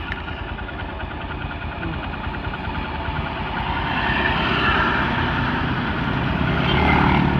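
Motorcycle engine running while riding on a wet road, under a steady rush of wind and road noise; the engine grows louder from about four seconds in.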